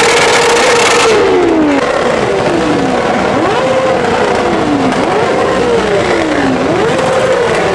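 Sportbike engine revved hard while standing, its exhaust glowing red-hot: held steady at high revs for about a second, then a run of throttle blips, each climbing quickly and dropping away, about once a second.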